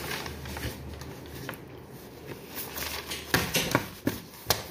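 Sheets of paper being handled and leafed through at a desk, with light rustling and a handful of sharp clicks in the second half, over a low steady hum.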